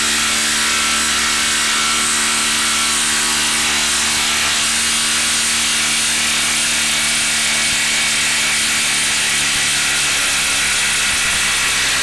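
Milwaukee Fuel cordless impact driver hammering steadily without a break as it backs a 10-inch lag screw out of a wood round in reverse.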